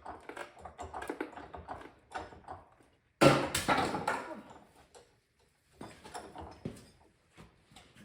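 Irregular clicks and knocks of hands-on work on the tractor with jack and tools, with a louder clatter a little past three seconds in that fades over about a second.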